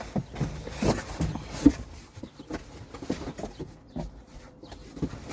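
Irregular knocks, taps and rustles of a cardboard box being opened and its contents handled, with a few louder knocks in the first two seconds.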